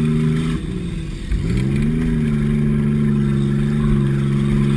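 Car engine heard from inside the cabin while driving, running at steady revs. About half a second in its pitch drops away, then climbs back up about a second later and holds steady.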